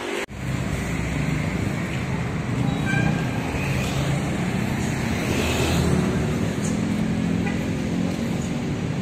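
Street traffic noise: a steady rumble of passing cars and minibuses.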